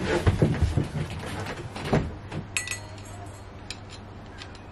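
Bumps and knocks against wooden cabinetry as someone shifts position, clustered in the first two seconds, then a short ringing clink of a metal tool and a few faint clicks as a screwdriver goes to work on a hose clamp.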